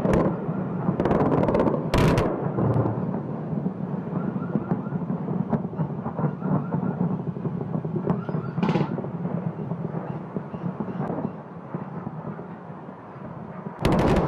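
Air-strike explosions on a city at night: loud blasts at the start, about two seconds in and near the end, with a rolling rumble and scattered smaller cracks between them.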